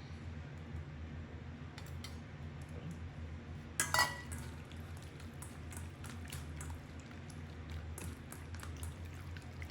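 Raw marinated chicken pieces being mixed with egg by hand in a bowl: one sharp clink against the bowl about four seconds in, then soft wet squelches and small clicks.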